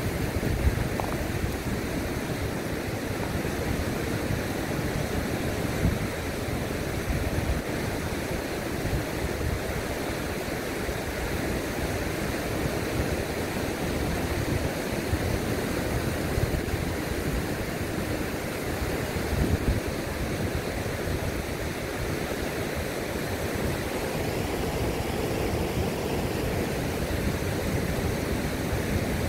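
Mountain river rushing steadily over shallow rapids, an even hiss of running water with an uneven low rumble underneath.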